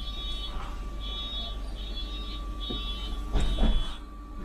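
Electronic warning beeper inside a city bus sounding a steady run of high beeps, about one every 0.8 seconds, over the bus's low running rumble. The beeping stops with a louder burst of noise near the end.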